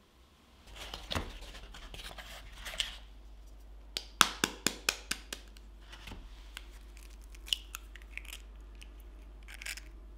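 Hands handling a cardboard egg carton and eggs, rustling and scraping, with a quick run of sharp clicks about four seconds in. Near the end an egg is cracked open over a glass bowl.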